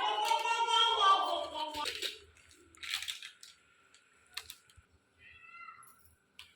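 A high-pitched voice vocalising for about two seconds, followed by a few sharp clicks and taps.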